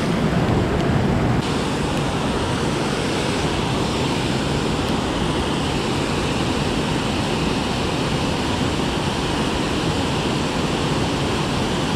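Steady rush of river water pouring over a low spillway weir and churning into whitewater below it.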